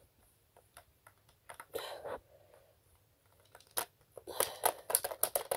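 Plastic toys being handled on carpet, a toy quad bike pushed over a small plastic figure. There are scattered light clicks and knocks, a short scrape about two seconds in, then a quick clatter of clicks from about four seconds on.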